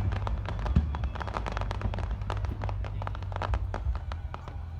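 Aerial fireworks crackling: a dense, irregular run of small sharp pops over a steady low rumble, with one heavier boom about a second in.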